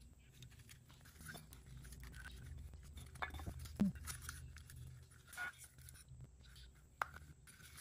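Faint clicks and light scrapes of a plastic side-mirror actuator housing being handled and turned in the hands, a few small knocks scattered through.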